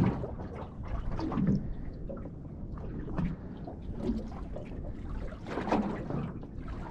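Sea water lapping and slapping irregularly against the hull of a small drifting boat, over a steady low rush of open water.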